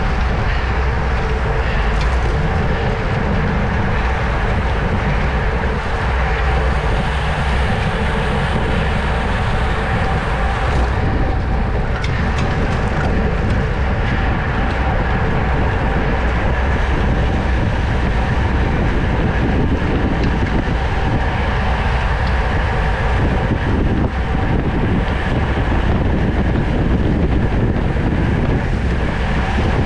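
Steady wind rush on a GoPro's microphone with the rolling whir of a road bicycle at racing speed.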